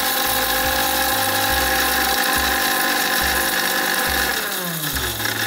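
Electric mixer grinder running at full speed in its small jar, grinding fried boondi and a few cloves into powder. Near the end the motor is switched off and its hum falls in pitch as it slows down.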